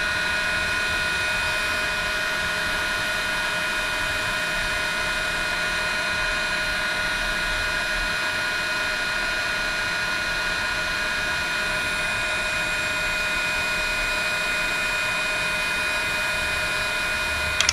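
Cordless heat gun running steadily, its fan blowing with a constant whine, as it shrinks heat-shrink tubing over crimped wire connections.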